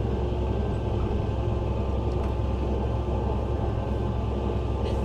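Fendt 936 tractor engine running steadily under load inside the closed cab while it pulls a Bednar Terraland deep cultivator through the soil. It is a constant low drone with no change in speed.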